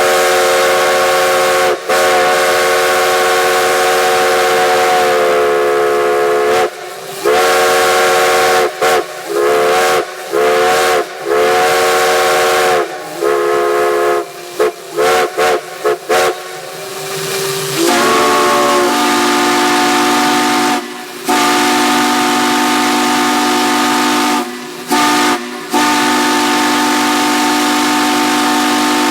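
Steam whistles blowing, each sounding a chord of several notes over a steady steam hiss. A higher whistle gives long blasts and then a run of short toots, its pitch sagging as each blast ends. About two-thirds in, a deeper whistle slides in and holds long blasts.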